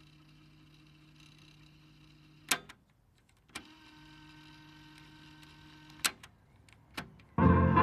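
Cassette deck's tape transport motor whirring steadily, cut off by a sharp clunk of a transport key about two and a half seconds in; another click, a second stretch of whirring, two more clicks, then music starts playing loudly from the tape near the end.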